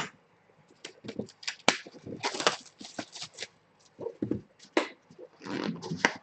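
Trading-card boxes and packaging being handled and opened, making irregular clicks, taps and short rustling scrapes.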